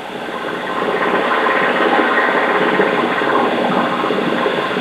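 Dense mechanical rattling and clatter, growing louder over the first second and then holding steady.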